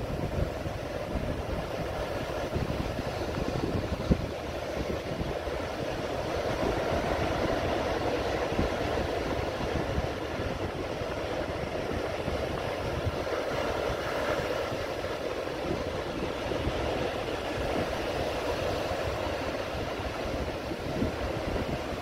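Ocean surf washing and breaking on a beach, a steady rushing noise, with strong wind buffeting the microphone.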